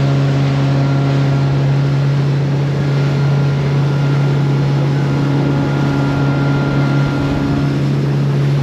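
Boat engine running steadily while the boat is underway: a constant low drone that holds one pitch, over a steady rush of wind and water noise.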